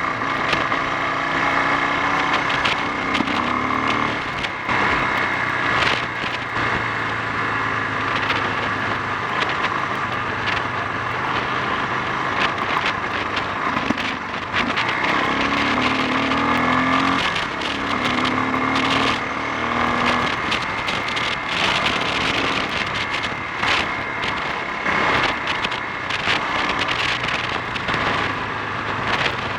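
Honda XL 350 single-cylinder four-stroke engine running as the motorcycle is ridden, its note rising and falling with the throttle, with wind rushing over the microphone. The owner says this engine splutters and bogs down when accelerating.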